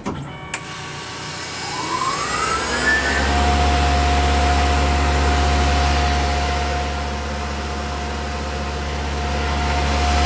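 Tormach PCNC mill spindle, fitted with a 30-degree engraver, spinning up with a rising whine about two seconds in, then running at a steady high whine over a low hum, with a steady hiss beneath.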